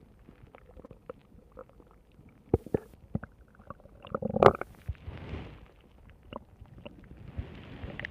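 A stomach growling and gurgling: faint scattered pops and gurgles, then a louder gurgle about halfway through, followed by a short rushing rumble.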